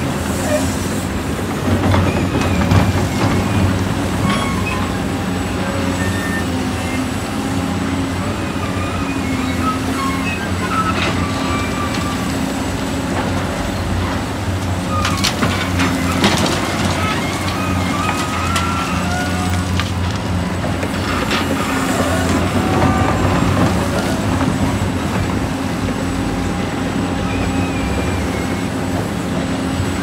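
Heavy diesel machinery running steadily, with short high squeaks here and there and a few knocks about halfway through.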